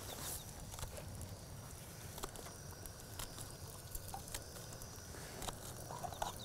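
Faint, irregular light clicks and taps of camp cooking, about one a second, over a soft steady background: a knife chopping green onion on a wooden round, and English muffins toasting in an oiled pan on a camp stove.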